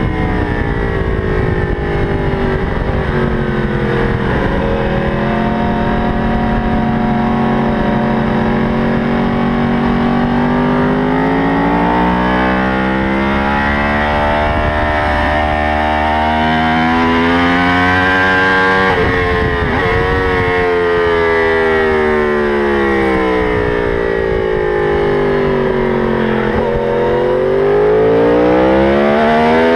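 Sport motorcycle's engine at racing pace, heard from the rider's seat: the revs fall at first, climb steadily for a long stretch, drop sharply about nineteen seconds in, sink away as the bike slows, then climb again near the end.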